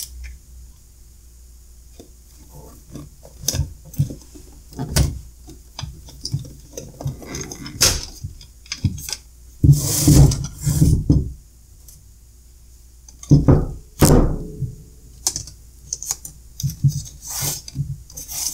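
Hands handling sealed lead-acid batteries on a workbench: irregular clicks, clacks and knocks of the plastic battery cases being pulled apart and set down, with some scuffing. The loudest knocks come about ten seconds in and again about fourteen seconds in.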